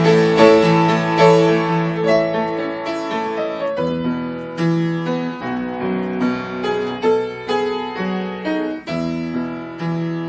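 Solo piano playing a slow melody over held, ringing chords, growing gradually softer.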